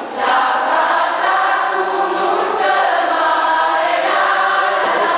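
Children's choir singing in unison.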